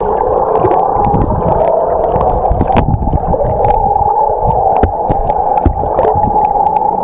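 Underwater sound picked up by a submerged camera: the trolling boat's motor and propeller as a steady drone carried through the water, over a low rushing rumble with scattered small clicks and knocks.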